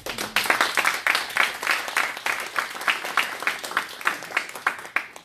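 Audience applauding: many hands clapping together, starting abruptly and lasting about five seconds.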